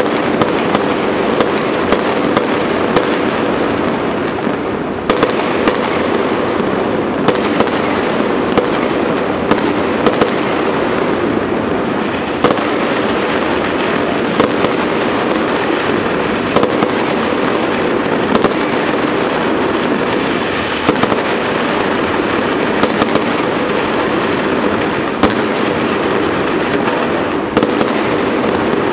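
Fireworks going off in a continuous barrage: a dense, unbroken crackle with frequent sharp bangs scattered throughout.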